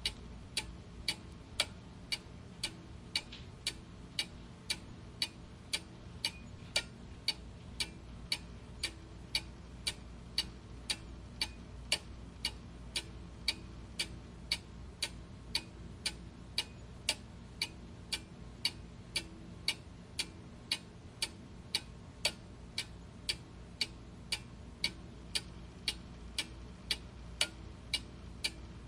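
Clock ticking steadily, about two ticks a second, over a faint low background hum.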